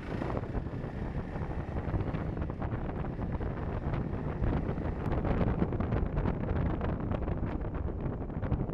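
Wind rushing and buffeting over the microphone of a motorcycle dash cam on a Honda CRF300L as it rides and picks up speed, with the bike's running noise underneath. The buffeting turns crackly and a little louder about halfway through as the speed rises.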